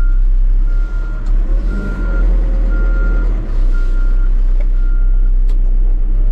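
A CAT wheeled machine's diesel engine running, heard from inside the cab, with a backup alarm beeping about once a second that stops near the end.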